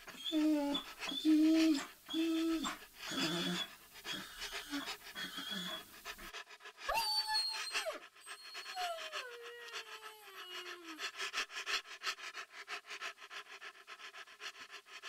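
Dog panting in quick, rhythmic breaths. For the first six seconds each breath carries a pitched, whine-like tone. After an abrupt change the panting turns faster and lighter, at about five breaths a second, with a brief whine falling in pitch partway through.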